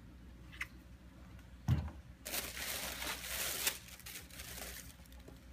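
A single knock, then paper crinkling and rustling for about a second and a half, easing to a fainter rustle near the end: shoe box wrapping being handled.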